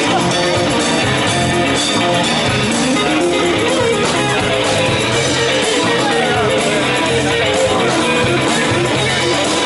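Blues electric guitar solo on a Telecaster-style guitar through an amplifier, with bent notes, over a live band's backing with regular drum and cymbal hits.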